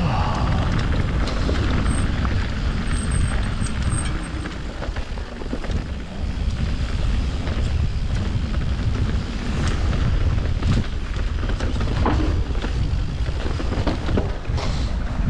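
Wind buffeting the microphone over the rumble of an e-bike riding a rough dirt trail, with a few sharp knocks from the bike over rocks and roots.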